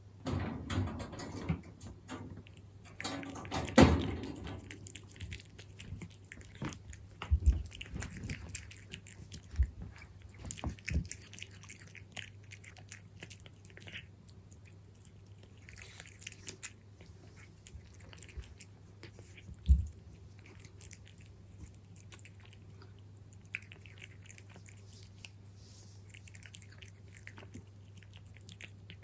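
A cat chewing and biting its food close to the microphone, with several louder low knocks in the first half and a steady low hum underneath.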